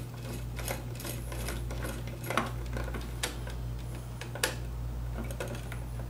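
Irregular light clicks and taps, roughly one a second, from handling a wall light switch and its wires, with a steady low hum underneath.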